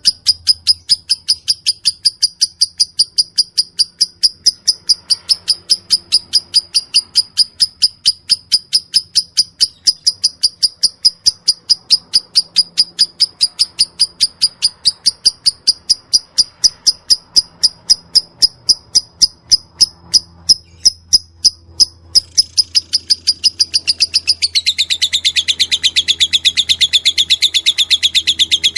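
Lovebird chirping in the rapid 'ngetik' style: short, high, evenly spaced chirps about four a second, kept up without a break. Near the end the chirps run together into a denser, fuller trill.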